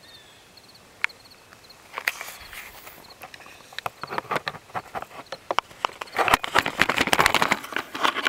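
Footsteps crunching on gravel and stony ground, irregular at first and coming thick and fast from about four seconds in, loudest near the end.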